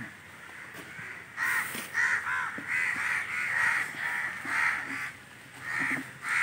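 Crows cawing: a quick run of short caws, about three a second, starting about a second and a half in, pausing briefly, then resuming near the end.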